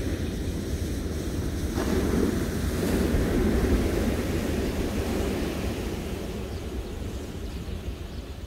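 Ocean surf: a wave breaking and washing up the beach, swelling about two seconds in and dying away near the end, with wind rumbling on the microphone.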